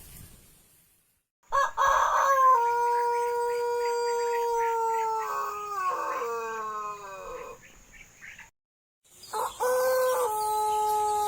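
Pelung rooster crowing: a long, melodious crow with a brief rising start and a long held note, then a wavering, falling tail. A second crow begins near the end, again settling into a long held note.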